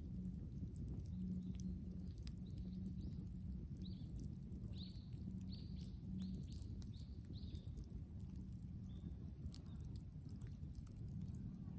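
Brushwood bonfire crackling with scattered sharp snaps over a low steady rumble. In the middle, a bird calls a quick run of about eight short high notes.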